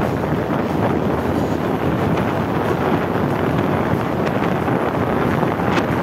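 Wind buffeting the phone's microphone: a steady, heavy low rush of noise, with a few faint clicks near the end.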